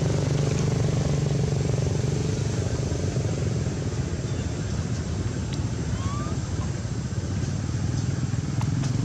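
A steady low rumble with no clear source, with a brief faint rising chirp about six seconds in.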